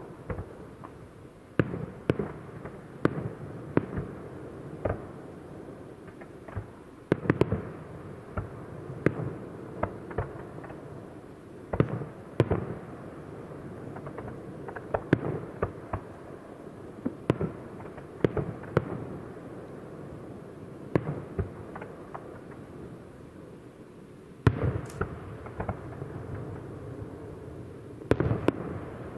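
Aerial fireworks display: shells bursting in sharp bangs at irregular intervals, sometimes several in quick succession, over a steady low rumble. Clusters of louder bangs come about a quarter and about halfway through, and the single loudest near the end.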